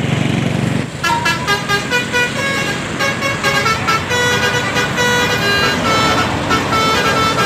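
Basuri telolet horn on an Indonesian bus playing a quick tune of short, stepping notes, starting about a second in after a low rumble.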